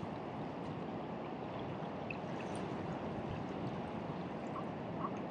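Steady rushing of water, with a few faint small ticks over it.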